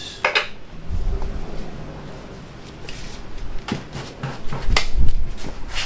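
A wrench clinking and knocking against a dirt bike's rear axle and chain adjusters as it is worked: a few sharp metallic clicks, one just after the start and a cluster near the end, with dull thumps between them.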